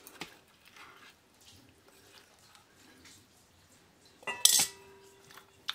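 Boiled amla segments, salted and coated in turmeric, sloshing faintly in the liquid drawn out of them as the glass bowl is shaken. About four seconds in, the glass bowl gives one sharp clink and rings briefly.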